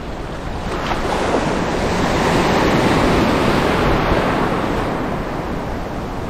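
Rough sea surf: a wave surges in, swelling about a second in, loudest in the middle and easing off near the end, over a low rumble of wind on the microphone.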